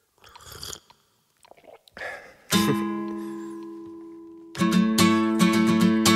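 A few faint, brief soft noises, then about two and a half seconds in a single strummed acoustic guitar chord rings out and slowly fades; about two seconds later steady rhythmic strumming begins: the opening of a song.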